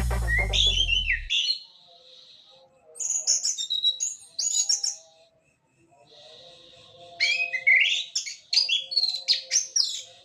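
Orange-headed thrush singing quick, varied chirping and whistled phrases in two bouts with a quiet pause between. Bass-heavy background music cuts off about a second in.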